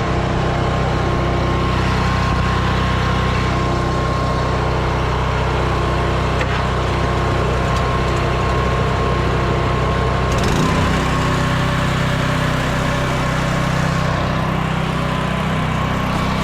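Small gasoline engine on a pressure-washing rig running steadily. About ten seconds in, its note shifts suddenly to a slightly different pitch, as with a change of speed or load.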